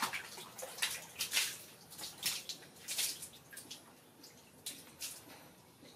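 Water splashing and sloshing in a plastic bucket as a baby monkey ducks and paddles in it: a run of irregular splashes.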